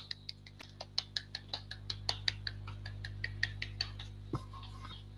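Hands clapping in quick, even claps, about five a second, faint, stopping about four seconds in.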